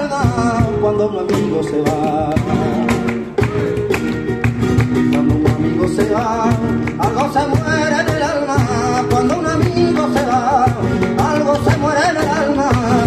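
Live flamenco: a male singer's wavering, ornamented vocal lines over a strummed and plucked flamenco guitar, with sharp hand claps (palmas) keeping time. The singing comes in phrases with short breaks between them.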